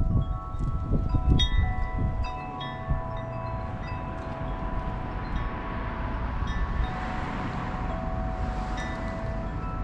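Wind chimes ringing, several tones overlapping and sustained, struck repeatedly during the first few seconds and then left to ring on. Wind buffets the microphone at the start, and a gust of wind swells and fades near the end.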